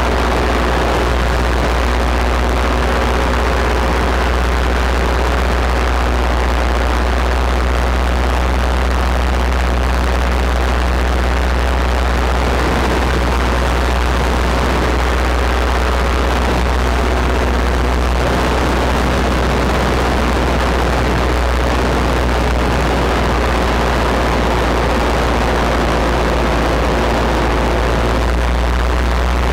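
Paramotor engine and propeller running steadily in flight, with wind rushing over the microphone. The engine note shifts slightly a little past halfway.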